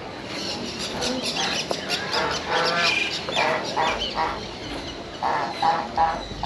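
Birds in an aviary calling, a run of short repeated calls, some overlapping, the loudest cluster near the end.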